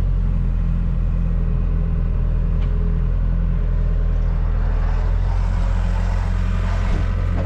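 Compact excavator's diesel engine running at a steady, unchanging level.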